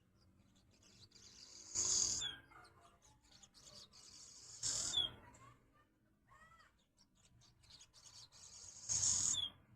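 Swallows twittering: three loud, raspy calls about three seconds apart, each ending in a sharp falling note, with softer arched chirps between them.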